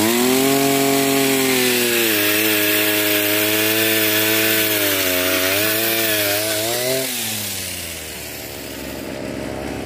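Petrol chainsaw revving up to full throttle as it cuts through a fruit-tree branch, its engine note wavering under load. It drops back to idle about seven seconds in.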